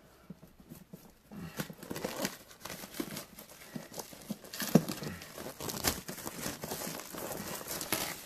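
Plastic shrink-wrap being torn and crinkled off a box, in irregular crackles and rustles that start about a second in.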